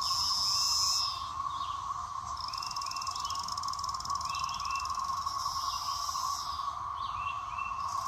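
17-year periodical cicadas: a steady, even droning chorus from the whole brood, with one nearby individual cicada's higher, pulsing buzz on top that breaks off about a second in, starts again, stops near the end and then comes back.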